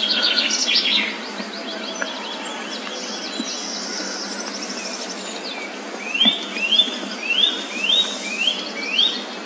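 Wild birds singing: a fast jumble of notes at first, a thin high trill through the middle, then a loud run of six repeated sweeping whistled notes about half a second apart near the end.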